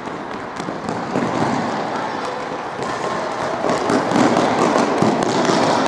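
Children's feet running fast across a sports-hall floor, a dense clatter of footfalls and shoe squeaks that grows louder after about three seconds.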